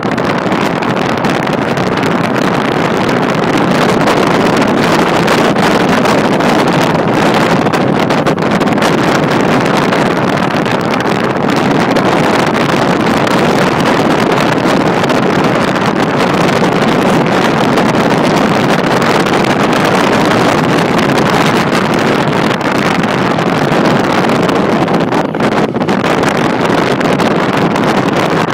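Steady rush of road and wind noise from a car driving along city streets, heard from the car.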